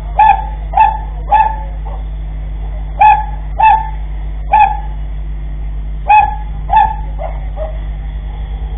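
A dog barking, about eight short barks mostly in pairs, over a steady low hum.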